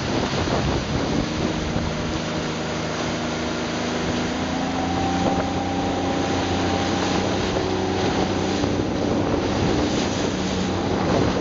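Motorboat engine running steadily, its hum rising slightly in pitch over the first few seconds, under wind buffeting the microphone and rushing water.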